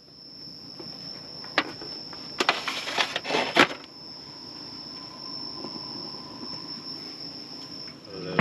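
Night insects calling in one steady high-pitched note, with a few sharp knocks and a short clatter between about one and a half and four seconds in.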